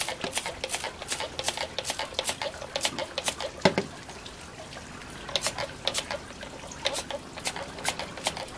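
Plastic trigger spray bottle being squeezed over and over, quick spritzes at about four a second, stopping for about a second and a half around the middle and then resuming at a slower pace. Just before the break, a single knock is the loudest sound. The bottle is running low on spray.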